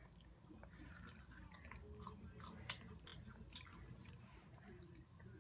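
A person chewing a crunchy snack close to the microphone: faint, irregular crunches and mouth clicks, with two sharper crunches near the middle, over a low steady hum.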